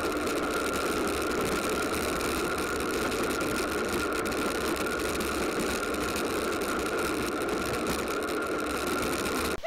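Battery-powered kid's ride-on kart driving on a dirt track, heard from a camera mounted on the kart: a steady whine from the drive motor and gears over a constant rattle of its plastic wheels and frame on the rough ground. The sound cuts off suddenly at the very end.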